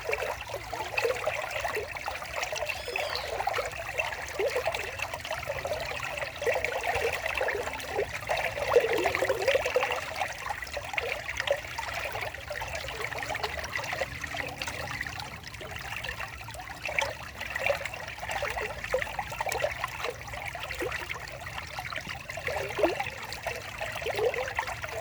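Water of a small stream trickling and babbling steadily, with continuous bubbling gurgles.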